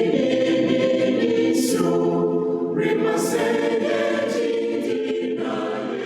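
Choir singing in parts, the held notes of several voices moving together, with the hiss of sung 's' sounds standing out every second or so; no instruments are heard.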